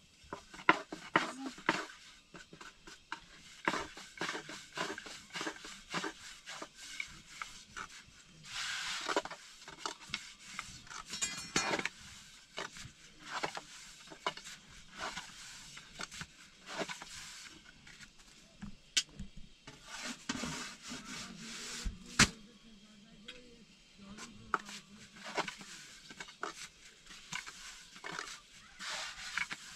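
Thin wooden rolling pin rolling out flatbread dough on a round wooden board: irregular clacks and knocks of the pin against the board, with soft rubbing of the dough between them and one sharper knock past the middle.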